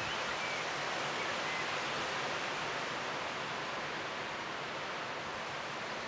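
Leaves of a tree rustling steadily in the wind, a continuous soft hiss.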